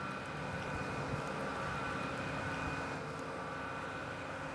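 A steady machine hum with a few high whining tones held above it.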